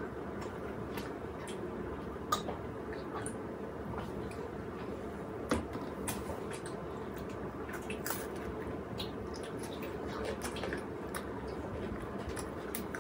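Chocolate being eaten: scattered small wet clicks and squishy chewing sounds over a steady low background hum.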